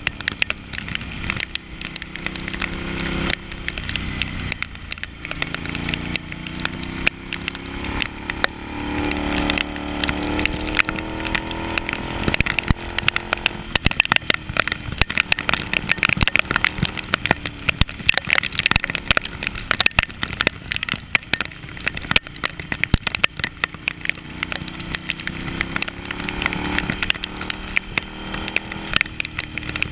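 Ducati Hypermotard's L-twin engine running under way, rising in pitch as it pulls up through the revs twice. Over it runs a dense crackle of rain and wind striking the camera.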